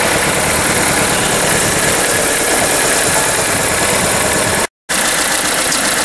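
VW Polo 1.4 16V four-cylinder petrol engine idling with a misfire; the misfire is on cylinder 2, whose injector is not firing. The sound breaks off for a split second about three-quarters of the way through, then resumes.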